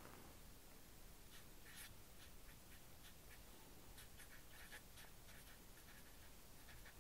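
Faint strokes of a felt-tip permanent marker writing on paper, a series of short strokes starting a little over a second in.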